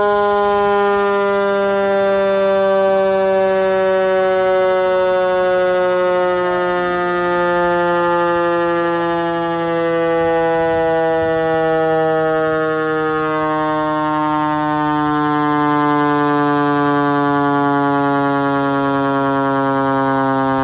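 Federal Q2B mechanical siren winding down, its wail falling slowly and steadily in pitch.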